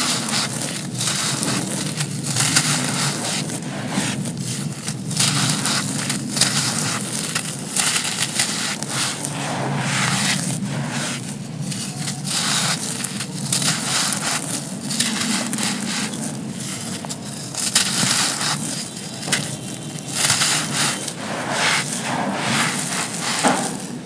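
Dry, gritty sand cones being crushed and crumbling: a dense, irregular run of crisp crunches and gritty crackling.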